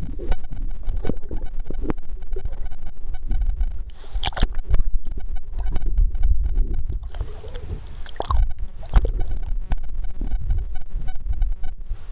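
Muffled water rumble and sloshing heard through a waterproof camera held under and at the sea surface, with scattered knocks and splashes of water and handling against the housing.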